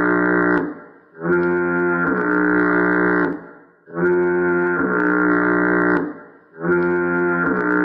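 Fog horn sound effect repeating over and over: long, deep horn blasts of about two seconds each, one every two and a half seconds or so, each dropping slightly in pitch partway through.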